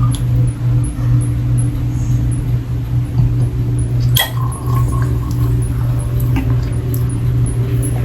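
Drinking from a bottle: liquid sloshing and being swallowed, over a steady low hum, with a small click about four seconds in.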